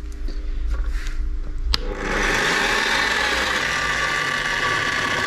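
A sharp click, then from about two seconds in a Parkside bench drill press runs steadily, its bit drilling holes in a steel sheet-metal plate.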